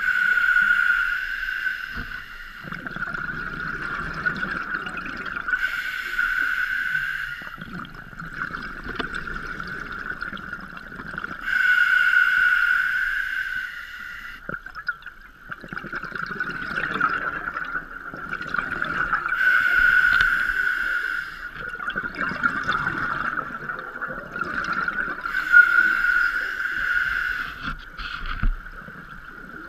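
Scuba diver breathing through a regulator underwater, with five bursts of exhaled bubbles about every six to seven seconds.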